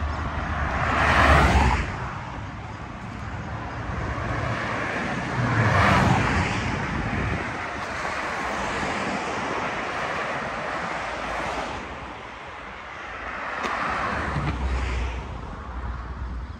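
Street traffic with vehicles passing: three of them swell and fade, about a second in, around six seconds in and near the end, over a steady rumble.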